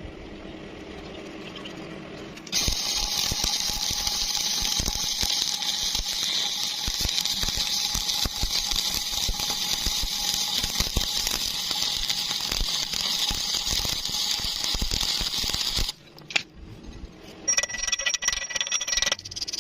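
Stick welding arc crackling and hissing steadily, striking a couple of seconds in and cutting off suddenly about thirteen seconds later. Near the end a quieter sound with a thin high whine follows.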